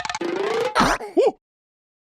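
Cartoon vocal sound effects: a fast rattling buzz runs into a held, slightly rising whistle-like tone, then comes a short hiss and a brief squeaky vocal cry that bends in pitch.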